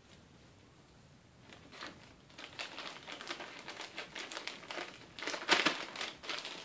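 Clear plastic parts bag crinkling and rustling as it is handled. It starts about a second and a half in, comes in irregular bursts and is loudest about five and a half seconds in.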